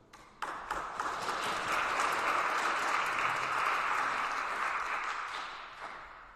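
A small congregation applauding a piano piece. The clapping starts about half a second in, holds steady, and fades away near the end.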